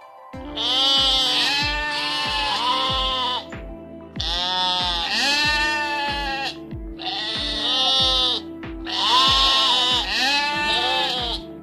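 Sheep bleating: several long, wavering bleats with short breaks between them. Background music with a steady thumping beat runs underneath.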